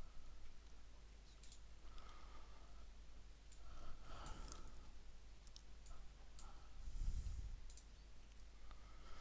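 Faint, scattered computer mouse clicks, a few seconds apart, with a soft low thump about seven seconds in.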